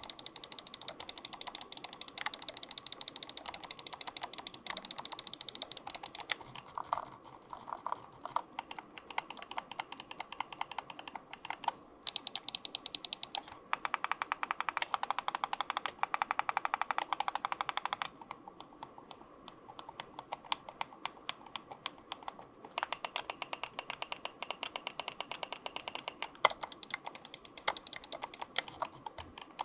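SteelSeries Rival 5 gaming mouse buttons, whose switches are rated for 80 million clicks, clicked over and over in fast runs of many clicks a second. The clicking grows quieter and sparser for a few seconds about two-thirds of the way through, then picks up again.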